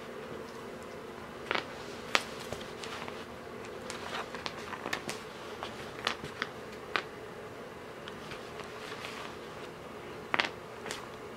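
Small game pieces and cards clicking and tapping on a cardboard game board as kittens bat them about, over a steady buzzing hum. The sharpest clicks come about two seconds in and near the end.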